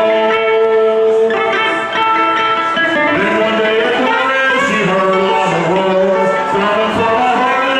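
A man singing through a microphone and PA, with a small guitar being strummed along. Amateur live music, loud and unbroken.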